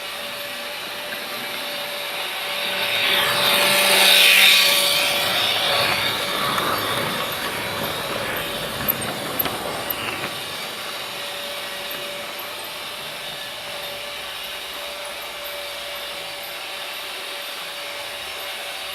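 Freight train rolling by on the rails: the rumble and rail noise swell to a peak about four seconds in, then fade over the next several seconds, with a few sharp clicks a little past the middle, over a steady hum.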